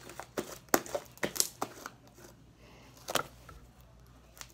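Purple slime squeezed and stretched by hand, giving wet clicks and pops: a quick run of them in the first two seconds and one more about three seconds in.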